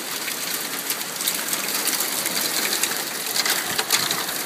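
Hailstorm: small hailstones and rain falling hard on a wooden deck and yard, many sharp little ticks over a steady hiss.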